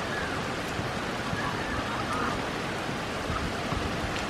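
Steady rain falling on wet pavement, puddles and grass: an even, unbroken hiss, with a few faint short chirps heard through it.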